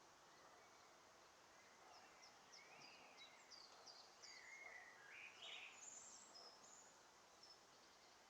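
Faint outdoor ambience with small birds chirping: short high chirps and gliding notes, busiest from about two to six seconds in.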